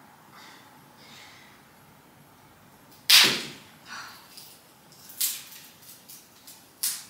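A bare tree branch being handled and set upright: one loud, sharp crack about three seconds in, then a few lighter clicks and knocks of twigs and wood.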